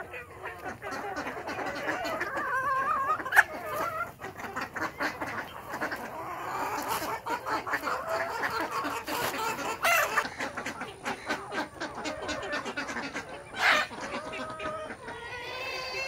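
Flock of desi chickens clucking and calling over one another, many short overlapping calls. A sharp click comes about three seconds in, and a louder short sound comes near the end.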